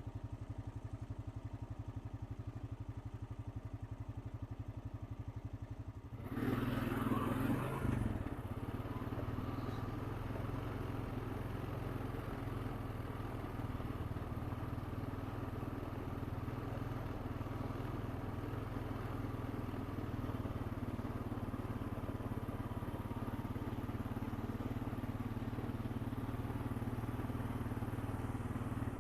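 Honda Rancher 420 ATV's single-cylinder engine running steadily, with a louder stretch of throttle about six seconds in that lasts a couple of seconds before settling back to an even run.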